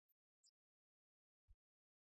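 Near silence, broken only by three very faint, brief clicks.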